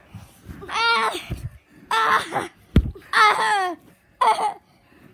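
Someone laughing hard in four high-pitched bursts, with one dull thud of a pillow blow a little under three seconds in.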